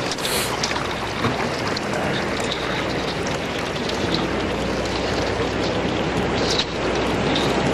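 Steel canal barge's hull breaking through thin canal ice: ice plates crackling and grinding against the hull with water sloshing, over a low steady rumble. Scattered sharp ticks and cracks, with a louder crack just after the start and another about six and a half seconds in.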